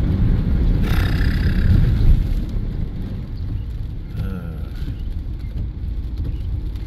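Car driving slowly through a flooded road, with a steady low rumble of engine and tyres from inside the cabin and a louder surge of noise between about one and two seconds in as the water is pushed aside.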